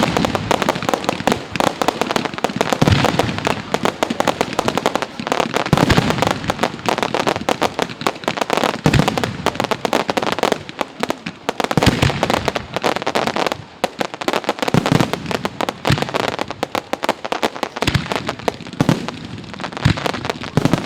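Fireworks going off: dense, continuous crackling and popping, with heavier deep bangs every two to three seconds. The barrage briefly thins about two-thirds of the way through, then carries on.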